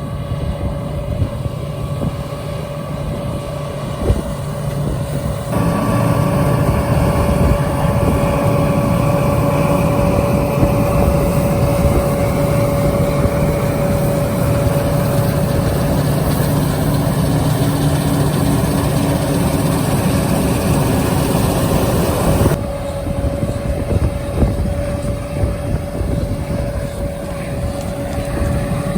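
Combine harvester running steadily at work, a constant engine and machinery hum with a steady mid-pitched tone. The sound changes abruptly about five seconds in and again a little past twenty seconds.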